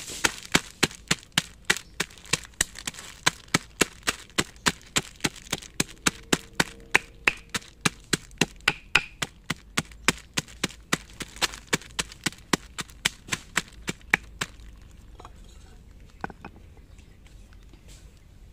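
Wooden pestle pounding shallots in a plastic bag on a stone slab to crush them open: a fast, even run of sharp blows, about three a second, that stops about fourteen seconds in, leaving a few faint ticks.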